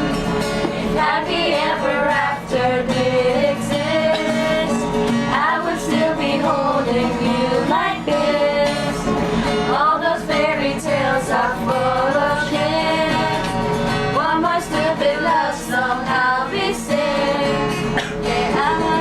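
A singer performing a pop song over guitar accompaniment, the voice rising and falling in sung phrases.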